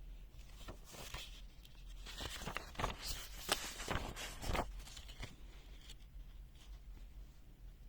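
Handling noises: a quick run of clicks, taps and crinkly rustling over a few seconds, busiest in the middle, then a few fainter ticks.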